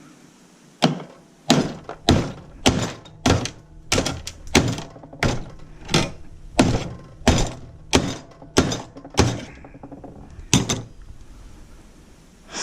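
A steady run of about fifteen hard hammer blows on a piece of scrapped hospital electronics, nearly two a second, then a short pause and a last double blow. The blows are an attempt to break a potted component out of the unit.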